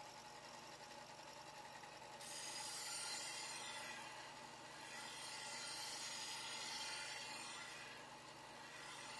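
Belt grinder running with a faint steady hum. About two seconds in, the flat of a clad-steel fish knife is pressed onto the 120-grit ceramic belt, which grinds the back bevel with a rasping hiss in two long passes. The grinding eases briefly just before five seconds and again around eight seconds.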